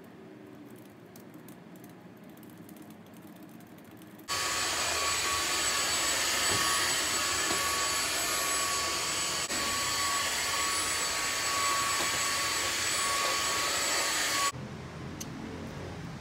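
Vacuum cleaner running steadily, a high motor whine over a loud hiss; it starts abruptly about four seconds in and cuts off about ten seconds later. Before it, faint laptop keyboard typing.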